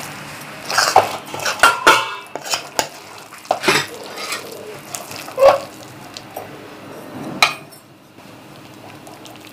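Metal spatula scraping and knocking against a metal kadai while scooping thick cooked raw-banana upma curry out of it. Irregular scrapes and clinks, busiest in the first half, then quieter with one sharp knock near the end.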